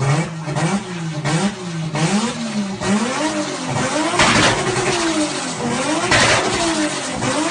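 Turbocharged car engine revved in repeated blips, its pitch rising and falling again and again, with two loud rushing bursts of turbo flutter about four and six seconds in.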